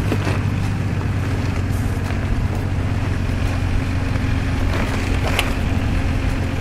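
Toyota 4Runner's engine running at a low, steady pace as the truck crawls over rocks, with a couple of light clicks.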